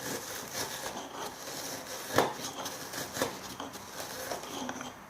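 Nigella seeds being ground with a pestle in a mortar: a continuous gritty rubbing with a few sharper strokes, crushing the seeds to release their oil.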